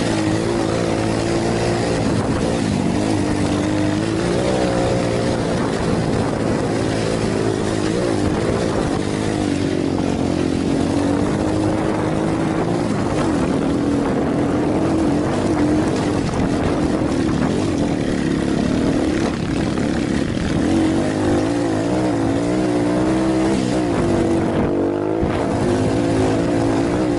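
Motorcycle engine heard from on board as it is ridden, its pitch rising and falling every few seconds as the throttle is opened and eased, over a steady rush of wind noise.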